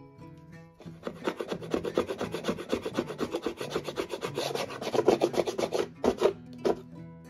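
Rapid back-and-forth rubbing strokes of a hand abrading tool on wood, starting about a second in and running for about five seconds, then two short separate strokes near the end. Soft plucked-guitar music plays underneath.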